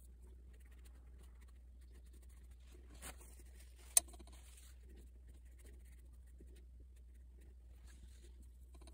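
Faint scratching and dabbing of a paintbrush laying gouache onto watercolour paper, over a low steady hum. One sharp click about four seconds in, just after a short burst of rustling.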